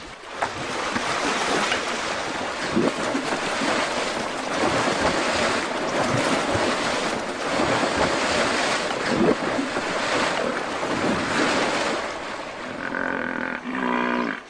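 Two hippopotamuses fighting in water: heavy, irregular splashing and churning water as their bodies and open jaws crash together.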